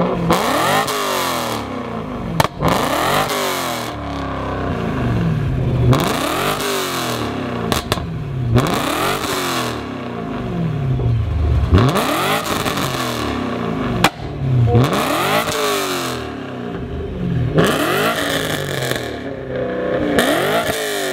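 Straight-piped BMW E90 M3's V8, mufflers cut off, being free-revved while parked, over and over, roughly every two seconds. A few sharp cracks come between the revs.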